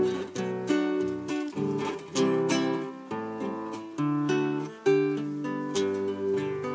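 Acoustic guitar played solo, chords strummed and notes plucked in a steady rhythm, with the strings left ringing between strokes.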